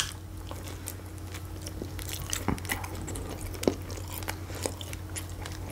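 Close-miked chewing of food, with small wet mouth clicks and crackles scattered throughout and a sharp click right at the start, over a faint steady hum.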